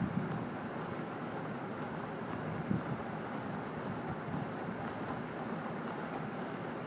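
Steady road and engine noise of a car driving at highway speed, heard from inside its cabin.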